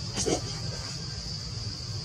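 Forest insects droning steadily at a high pitch over a low rumble, with one brief sliding call from a macaque about a quarter of a second in.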